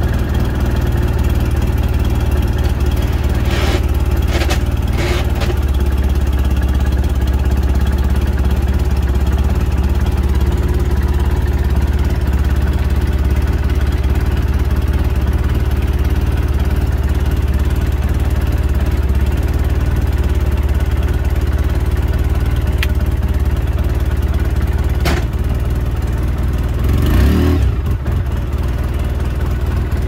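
2008 Polaris RZR 800's twin-cylinder engine idling steadily, with a few faint clicks and a short louder burst about three seconds before the end.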